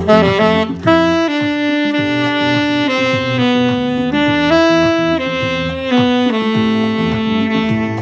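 Alto saxophone playing a melody in long held notes, each lasting about a second, over an accompaniment of lower notes and a light beat.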